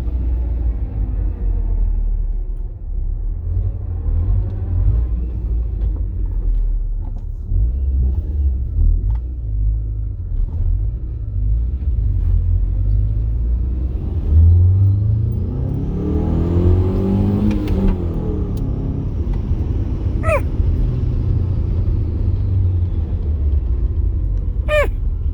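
A steady low rumble, with a car driving past about fifteen seconds in, its engine note rising and then falling away as it goes by.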